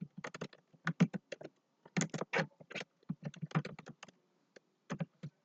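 Computer keyboard typing: a run of quick, irregular keystrokes, some in rapid flurries.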